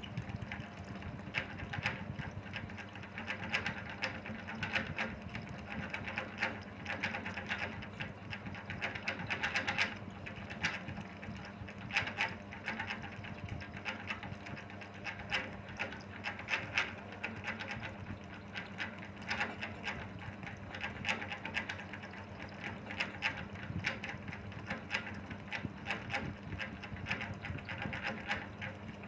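Steady low mechanical hum, with many light irregular clicks and taps over it.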